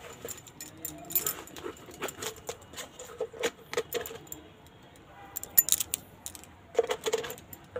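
Steel kitchen utensils clinking and tapping in irregular short clicks, as ingredients are added to an aluminium pot of water; the loudest clinks come about five and a half to six seconds in.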